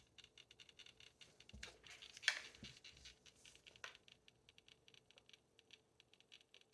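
Near silence with faint scattered clicks and scratchy rustles of handling, and one sharper click a little over two seconds in.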